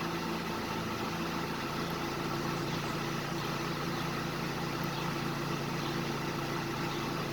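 Fiat Linea's 1.8 16V E.torQ four-cylinder engine idling steadily, with the air conditioning running.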